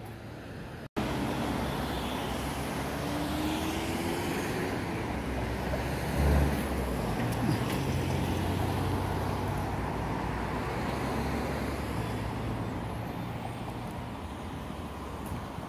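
Road traffic on a city boulevard: cars and vans driving past in a steady rush, with one engine rising in pitch a few seconds in and a vehicle passing close about six seconds in, the loudest moment.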